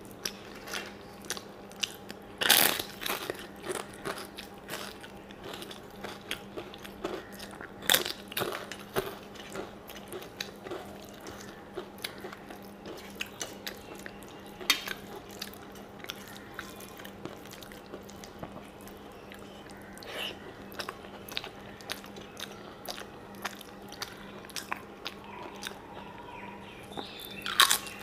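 Close-up eating sounds: chewing of rice and chutney eaten by hand, with a few loud crunches of fried papad (papadum) being bitten.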